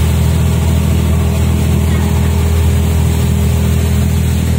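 Ferry boat's diesel engine running steadily at cruising speed, a constant low drone, over the rush of churning wake water.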